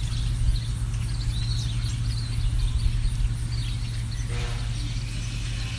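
Small songbirds chirping and calling repeatedly over a steady low rumble, with a brief pitched sound about four seconds in.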